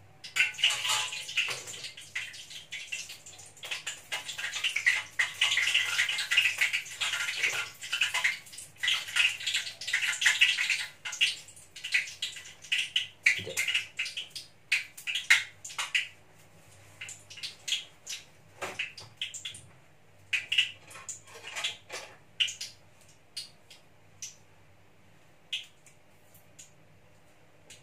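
Banana fritters frying in hot oil in a wok: a dense sizzle for roughly the first ten seconds, thinning into scattered crackles and pops for the rest.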